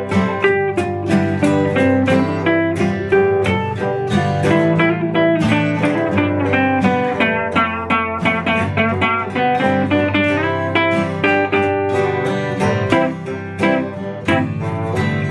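A band playing an instrumental guitar passage with no vocals: guitar notes picked in quick succession over a steady low accompaniment.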